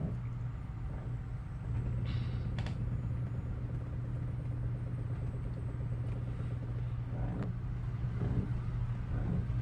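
Steady low mechanical hum, with a brief hiss about two seconds in and a few faint knocks.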